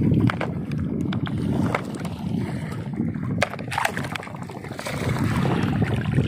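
Wind rumbling on the microphone and water sloshing, with scattered sharp clicks, one standing out about three and a half seconds in.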